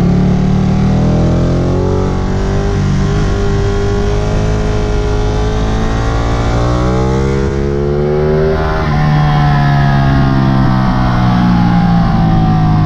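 Sport motorcycle engine heard from on the bike at speed, with wind noise on the microphone. The engine note climbs steadily through the first several seconds, changes abruptly about nine seconds in, then falls slowly.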